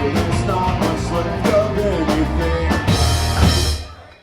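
Rock song with drums, guitar and singing, fading out near the end.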